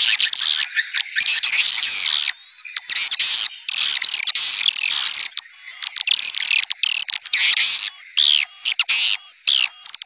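Swiftlet calls from a lure recording used to draw swiftlets into a bird house: dense, shrill twittering chirps with short flat whistled notes repeating over and over, broken by a few sudden short gaps.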